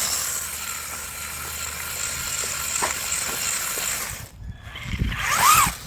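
Traxxas 4-Tec 2.0 RC car's brushed electric motor whining while its duct-taped tires scrub and hiss across pavement as it slides in a donut. The sound drops off after about four seconds, then comes a short burst with a pitch that rises and falls near the end.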